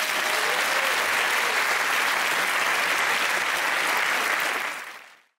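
Studio audience applauding steadily, fading away near the end.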